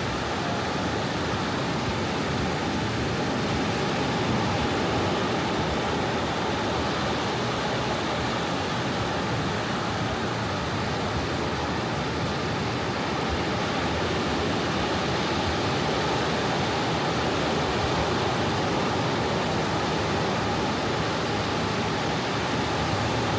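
Gentle sea waves washing onto the beach: a steady rush of surf that swells only slightly now and then, with no distinct breaking crashes.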